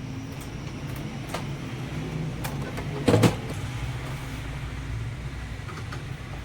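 Epson M200 printer mechanism running with a steady low whir and a few light clicks, and one loud clack about three seconds in.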